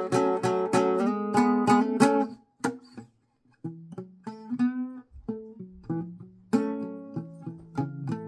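Small-bodied acoustic guitar fingerpicked in a blues style. It opens with a quick run of notes, pauses briefly about three seconds in, then goes on with sparser single notes, one of them bent in pitch, and fuller chords near the end.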